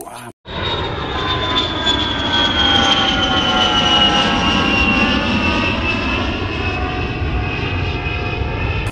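Jet airliner sound effect: a high turbine whine slowly falling in pitch over a steady rumble, cutting in abruptly about half a second in.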